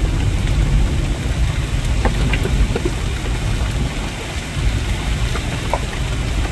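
Rain falling steadily, with scattered drops ticking and a heavy continuous low rumble underneath.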